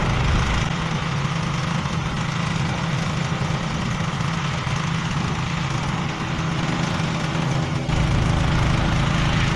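Several water-pump engines running steadily, a continuous mechanical hum over a noisy wash, as they drain a rock pool; a deeper low rumble comes in near the end.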